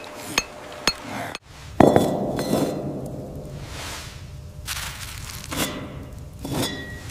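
Two sharp clinks of a metal chisel struck against stone. After a short break comes a heavy thud with a long fading tail, then a few light clinks of objects being set down on stone, the last one ringing briefly, over a low steady rumble.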